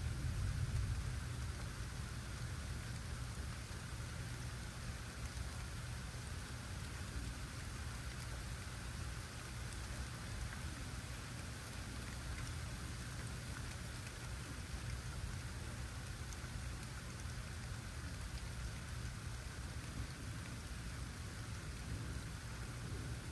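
Steady rain falling, an even hiss with a low rumble underneath and a brief swell about a second in.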